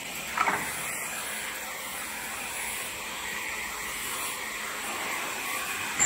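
Automatic wooden hammer-handle turning machine running with a steady hiss, with a short knock about half a second in.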